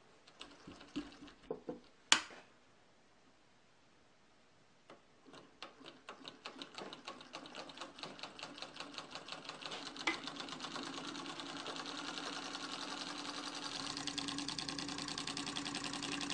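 Homemade solenoid engine: a few scattered clicks and one sharp snap, then about five seconds in it starts running, a fast, even clicking as the solenoid pulls in its iron core each time the copper-wire contacts on the cam close. The clicking speeds up and grows louder until the strokes run together into a steady clatter.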